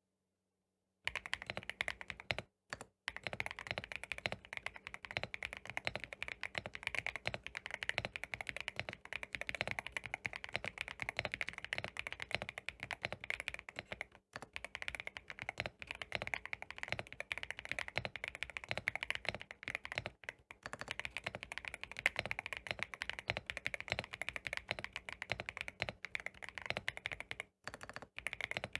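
Fast, continuous typing on a GMK67 mechanical keyboard, a dense run of key clicks that starts about a second in and breaks off briefly a few times.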